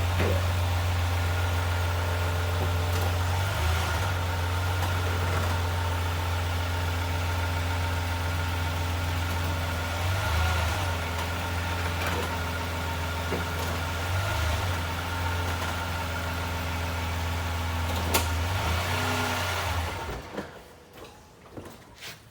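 2012 Lexus RX350's 3.5-litre V6 running steadily at idle, with a sharp click about eighteen seconds in. The engine stops about two seconds before the end.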